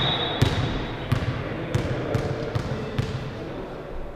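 A ball being bounced on a sports-hall floor, making sharp echoing thuds about two a second.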